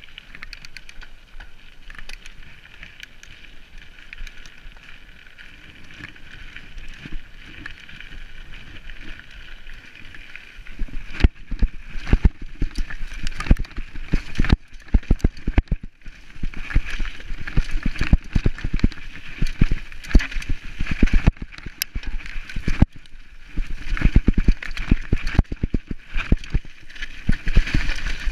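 Full-suspension mountain bike riding downhill. Steady tyre and wind hiss on the smooth track gives way, about eleven seconds in, to constant clattering and knocks as the bike rattles over rocks on a rough singletrack.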